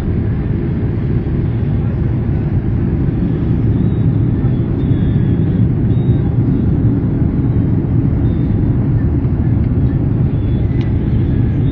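Steady cabin noise inside an Airbus A310 airliner in flight on its landing approach: a constant low rumble of engines and airflow heard through the cabin.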